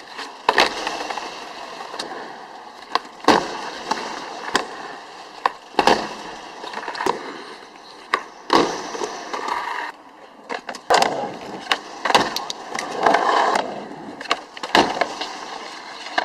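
Skateboard rolling, with about ten sharp pops, clacks and landing slaps of the board spread through the stretch as tricks are tried.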